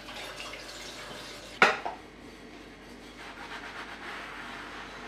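Dishes being washed at a stainless steel sink: a bowl clatters sharply against stacked pots and dishes about a second and a half in, with water splashing and dripping around it.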